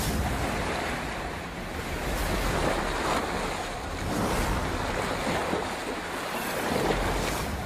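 Shallow river water churning and splashing as a crocodile drags a struggling wildebeest through it, with wind rumbling on the microphone. The noise is steady and swells and eases every second or two.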